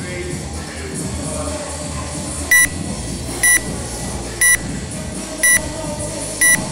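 A workout timer's countdown beeps: short, high-pitched beeps once a second, starting about two and a half seconds in, counting down the last seconds to the start of the next work interval. Background music plays throughout.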